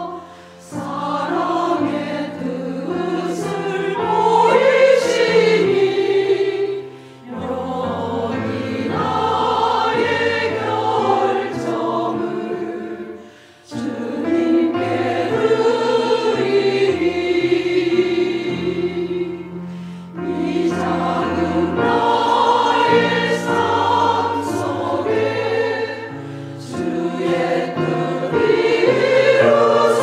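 Church choir singing a Korean hymn in parts, with piano accompaniment and short breaks between phrases.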